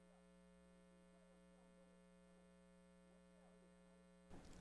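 Near silence, with only a very faint steady electrical hum.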